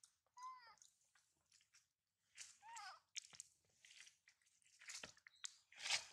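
Baby monkey giving two short, faint whimpering calls, each rising then falling in pitch, amid soft smacking and clicking sounds, with a brief louder rustle near the end.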